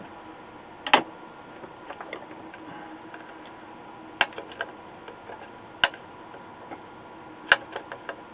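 Four sharp clicks, each followed by a few fainter ticks, from hands working on a printed circuit board and its tools, over a faint steady hum.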